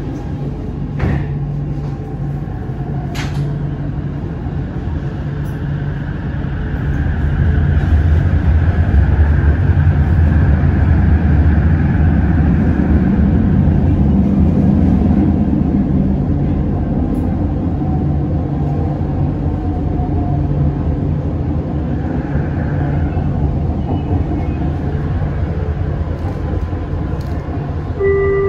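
Running noise inside a Bombardier Innovia Metro 300 light-metro car as the train leaves a station. The low rumble builds as it gathers speed about six to eight seconds in, then holds steady. There are two sharp clicks in the first few seconds.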